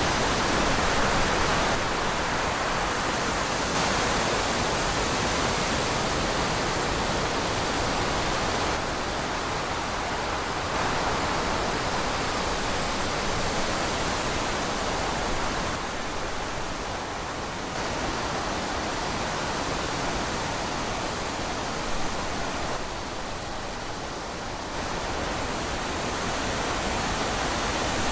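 Steady wind rushing, easing off a little a few times and swelling back.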